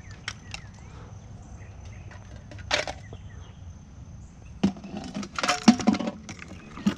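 Scattered knocks and rattles, busiest and loudest from about four and a half to six seconds in, over a steady thin high-pitched insect drone and a low hum.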